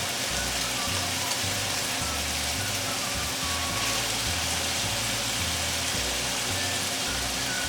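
Garlic, onion, ginger and pork sautéing in a pan with bagoong just added, a steady sizzling hiss over a low rumble.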